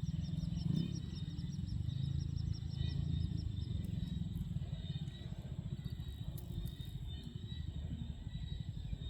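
Outdoor ambience: a steady low rumble of wind on the microphone, with a fast, high-pitched chirping that repeats several times a second and fades out about four seconds in.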